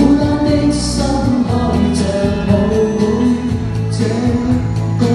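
A man and a woman singing a pop duet live into microphones over a backing track with a steady bass line.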